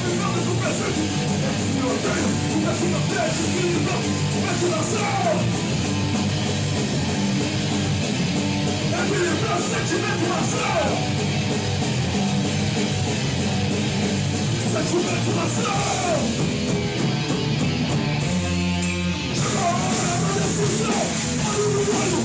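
A hardcore punk band playing live: distorted guitars and drums with yelled vocals, and a short break in the music about three-quarters of the way through.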